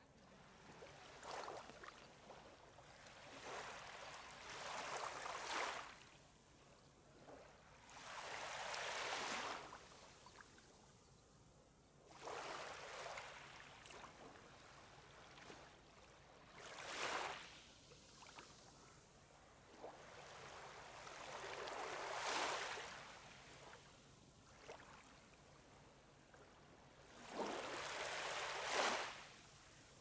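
Small waves washing onto a sandy beach, each wash swelling and fading away, repeating every few seconds.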